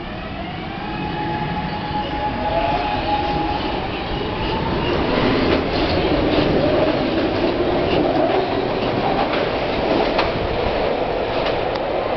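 SEPTA Market-Frankford Line M-4 subway train accelerating out of an underground station. The motors' whine rises in pitch over the first few seconds, then rumbling wheel and rail noise with sharp clicks grows louder as the cars pass.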